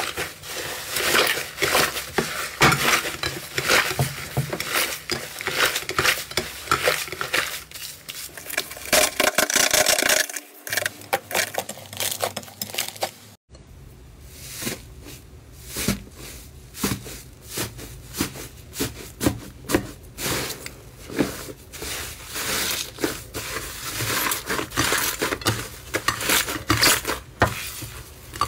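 Hands squeezing and kneading slime: a dense run of small sticky pops, crackles and squelches, with a short lull about halfway through.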